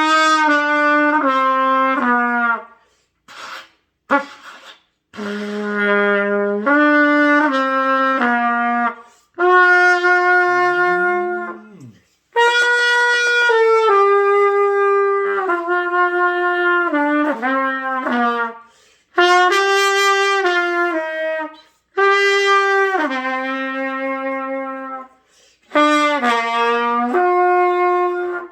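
Trumpet playing a simple tune as stepwise held notes in short phrases, breaking off every few seconds for a breath. It is beginner practice on breath control, with phrases too short to carry a full bar.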